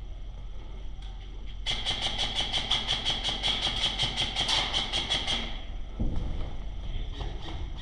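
Airsoft gun firing a long full-auto burst of rapid, evenly spaced shots, about eight a second, lasting close to four seconds; another run of shots starts near the end.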